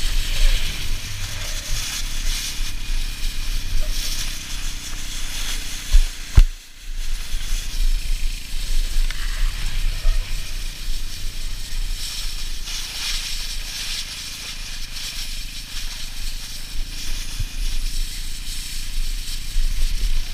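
Plastic saucer sleds scraping and rattling as they are dragged over patchy snow and grass, with wind buffeting the action-camera microphone. Two sharp knocks about six seconds in.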